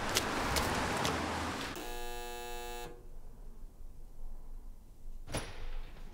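Footsteps on wet pavement over street noise. Then an electric doorbell buzzer sounds once for about a second, and a door latch clicks near the end.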